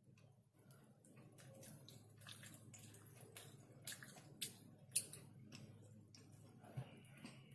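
Close-miked eating of chicken: soft wet chewing with irregular mouth clicks and smacks, a couple of them sharper about halfway through.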